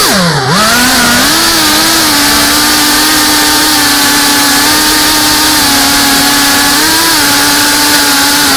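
Brushless motors and ducted propellers of a GEPRC Cinelog 35 FPV cinewhoop buzzing in flight. The pitch dips sharply and climbs back within the first half second, then holds a steady high hum over a hiss, with a slight rise about seven seconds in.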